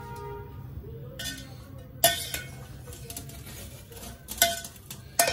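Metal spoon stirring and knocking against an aluminium cooking pot as spaghetti, chicken and vegetables are mixed, with a few sharp ringing clinks, the loudest about two seconds in and two more near the end.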